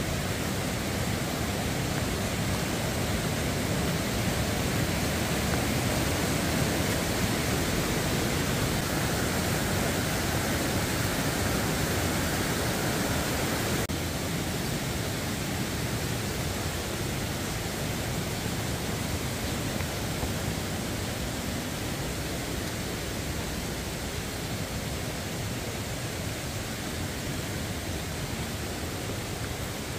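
Steady rush of a mountain stream running over rocks, a little quieter from about halfway through.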